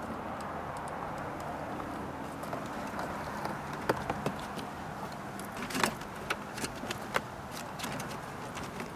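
Scattered sharp plastic clicks and light rattles as wiring connectors behind a car door panel are handled and plugged in, over a steady background hiss. The loudest clicks come about four and six seconds in.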